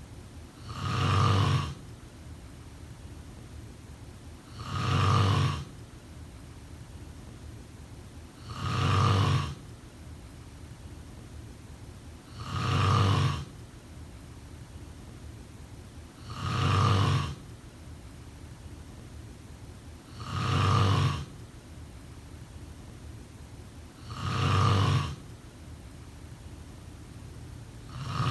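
A person snoring in a steady rhythm, one snore about every four seconds, each lasting about a second, over a steady background hiss.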